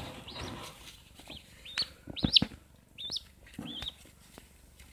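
Yellow-footed green pigeon chick giving about six short, high calls, each bending up and down in pitch: the calling of a hungry chick. Rustling of the chick being handled near the start.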